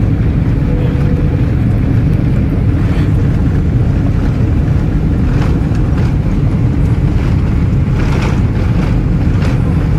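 Jet airliner engines at takeoff thrust, heard inside the cabin as a loud, steady low rumble while the plane accelerates down the runway, with a few faint rattles in the second half.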